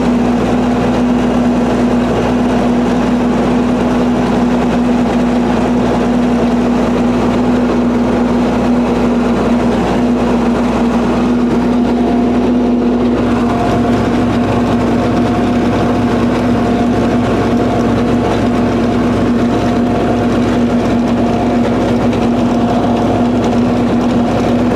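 Belarus MTZ tractor's diesel engine running steadily, first heard from inside the cab, with a strong steady hum. About halfway through the sound changes and a higher steady tone joins in.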